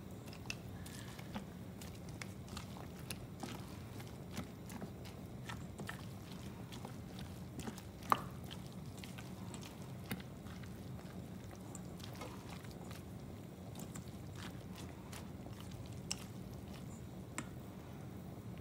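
Pan of cooking oil heating on a gas stove: a faint steady hum with scattered small ticks and crackles, and one sharper click about eight seconds in.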